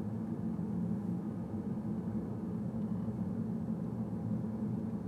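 Steady low hum of a car driving, with no sharp sounds.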